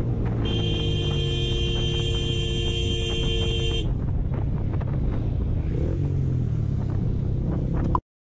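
A vehicle horn held for about three seconds, starting about half a second in, two steady tones sounding together. Under it, the steady rumble of a motorcycle's engine and wind on the rider's camera as the bike slows in traffic.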